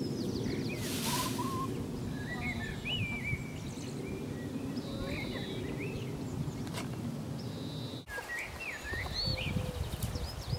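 Small songbirds chirping and warbling over a steady low outdoor rumble. About eight seconds in, the background changes abruptly to an uneven, fluttering low rustle.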